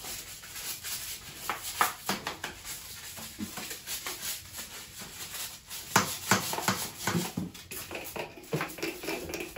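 Scrub brush scrubbing a bathroom surface in quick, irregular strokes, with a few sharper scrapes about six to seven seconds in.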